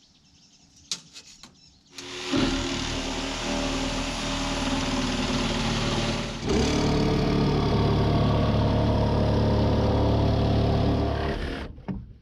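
A small engine starts up, runs steadily, then steps up to a louder, heavier running about halfway through and shuts off near the end.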